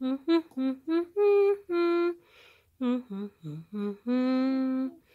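Musical toy potty chair playing its short reward tune: a simple melody of clear held notes in two phrases, the second ending on a long note, set off by the toy placed in its bowl.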